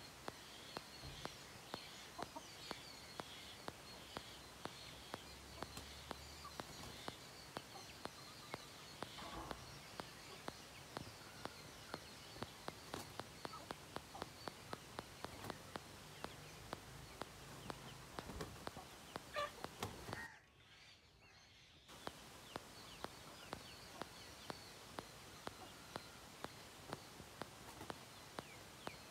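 Young Aseel chickens clucking and peeping faintly, over a steady run of sharp ticks a few times a second. The sound drops out for about a second and a half about two-thirds of the way through.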